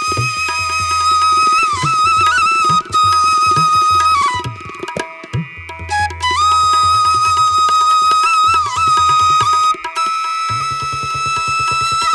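Background music: a wind-instrument melody holding long notes with short ornamental bends, over a steady hand-drum beat. The melody drops out briefly about five seconds in, then returns.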